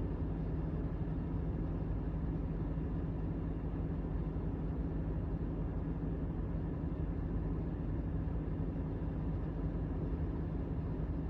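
An engine running steadily at a constant pitch, with a low hum and no change in speed.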